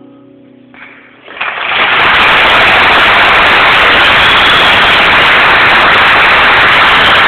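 The last acoustic guitar note fades out. About a second and a half in, the concert audience breaks into applause, which stays loud and steady and overloads the old mobile phone's microphone into a hiss.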